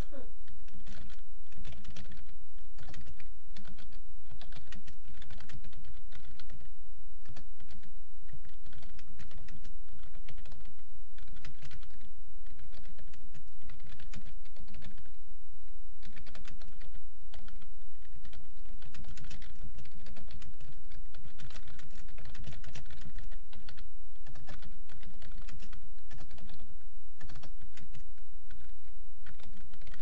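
Continuous typing on a computer keyboard: a fast, uneven patter of key clicks at around 45 words a minute, over a steady low hum.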